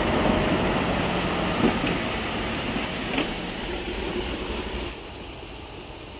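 Passenger train cars rolling past on the rails, with a couple of sharp clicks about a second and a half and three seconds in. The rumble drops off about five seconds in as the last car goes by.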